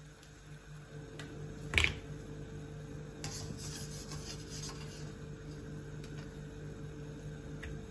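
A spatula scraping and lifting small lids out of a metal steamer tray, with one sharp clink about two seconds in and light scraping and rubbing after it. A steady low hum runs underneath.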